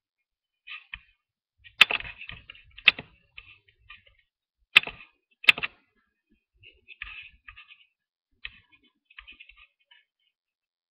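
Keys tapped on a computer keyboard in short, irregular runs, with four louder sharp clacks in the first half.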